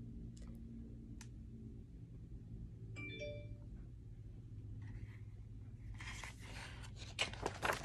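Paper rustling and crackling as a page of a hardcover picture book is handled and turned, starting about six seconds in and loudest near the end, over a steady low hum. About three seconds in, a short high chime rings once.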